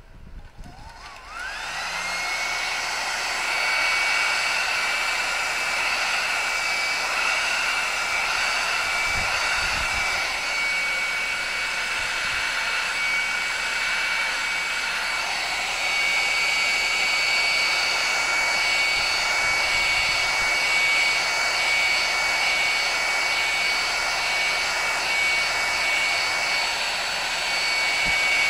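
Electric heat gun switched on about a second in: its fan spins up with a rising whine, then runs steadily as a loud even blowing with a high whine on top, blowing hot air to shrink heat shrink tubing onto a handle.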